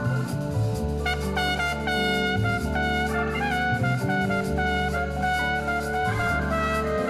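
Instrumental background music: a melody of held notes over a low bass line that changes note every second or so.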